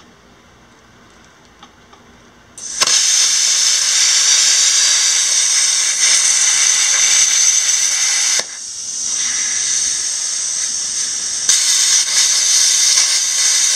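Plasma cutter's arc cutting a steel pipe: after a quiet start the arc strikes about three seconds in with a loud, steady hiss. It drops to a softer hiss for about three seconds past the middle, then the loud cutting hiss resumes and cuts off right at the end.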